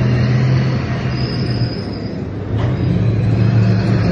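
Heavy military vehicle engine running steadily at low revs, a deep drone that dips briefly about two and a half seconds in, then picks up again slightly higher.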